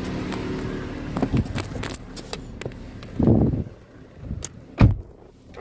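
A car engine idling with a steady low hum, then knocks and rustling as the phone is handled, and a loud thump about five seconds in.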